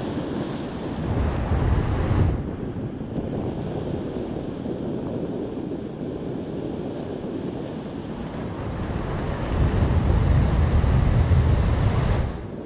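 Surf breaking and washing over the boulders of a rock jetty, with wind buffeting the microphone. Two strong gusts rumble about a second in and again in the last few seconds, each cutting off abruptly.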